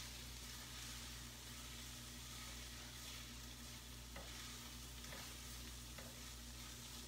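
Spiced food sizzling quietly in a frying pan while a spatula stirs it and breaks up chunks, with a few light taps against the pan about 4, 5 and 6 seconds in.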